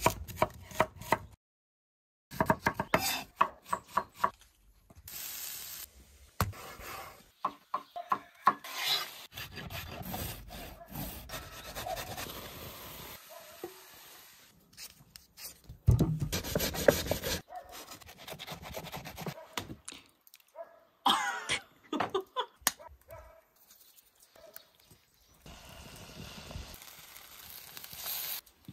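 A run of cooking sounds: a knife cutting through an onion onto a wooden board in clusters of sharp chops, then food frying and being stirred in a pan, and potato pancakes sizzling in a frying pan as they are turned with a fork.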